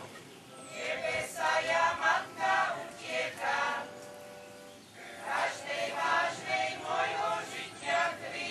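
A choir singing a hymn in two phrases, with a short break between them about four seconds in.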